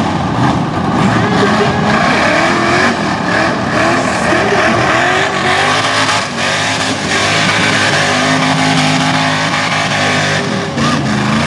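Rock bouncer buggy's engine at high revs under load on a steep dirt hill climb, its pitch swinging up and down as the throttle is worked. About halfway through it holds high and steady for several seconds, then dips briefly near the end.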